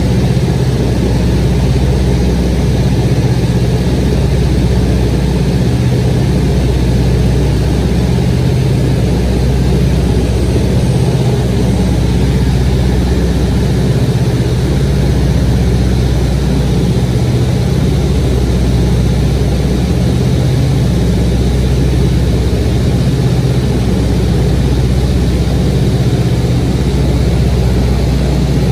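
Light aircraft's engine and propeller running steadily in level flight, heard from inside the cabin as an even low drone.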